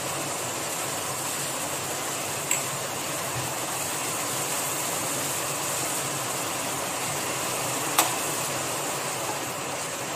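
Spatula stirring an egg-and-okra stir-fry in a frying pan, knocking sharply against the pan twice, over a steady hiss.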